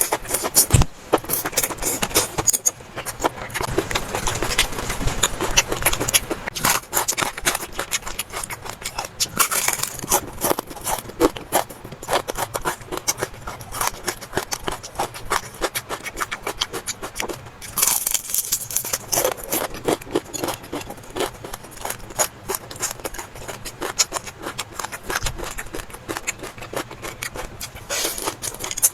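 Close-up eating sounds: utensils scraping and clicking against bowls, with a dense run of small clicks and louder stretches of scraping about a third and two-thirds of the way through.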